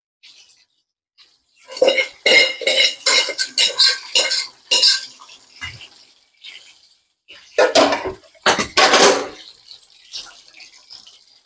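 Metal utensils clattering against steel dishes: a quick run of clinks and knocks, then a few louder clatters about eight seconds in.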